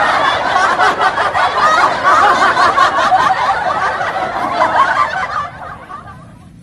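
Several people laughing loudly together, dying down about five and a half seconds in.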